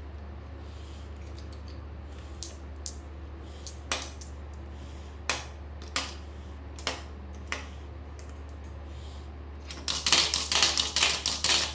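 Glass marbles set one at a time into a wooden marble-run track, each with a single sharp click. Near the end comes a fast run of clicks and clatter as the marbles roll down the plywood ramps and tip the seesaw, over a steady low hum.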